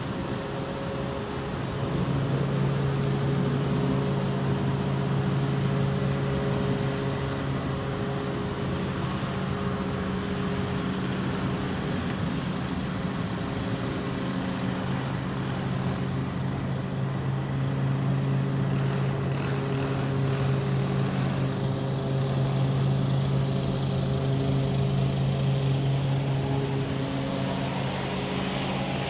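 Small petrol engine of landscaping equipment running steadily at a constant pitch, its level rising and falling a little as it is worked.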